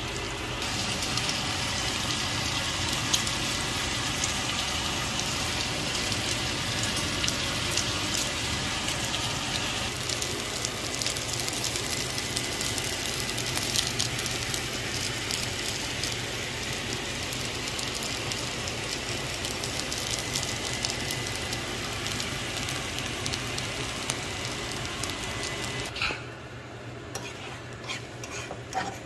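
Diced potatoes, onions and bell peppers sizzling and crackling in a nonstick frying pan. Near the end the sizzle drops away, leaving a few scrapes and taps of a fork stirring scrambled eggs in a pan.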